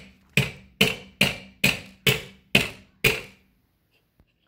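Claw hammer striking a nail into a wooden board: seven sharp, evenly spaced blows about two a second, each with a short metallic ring. The blows stop a little after three seconds in.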